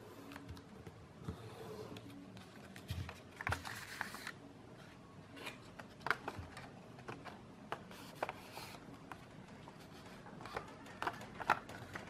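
A sheet of A4 paper handled and creased by hand as it is folded into a paper airplane: soft rustling and crinkling with scattered light taps, and louder rustles about four seconds in and again about eight seconds in.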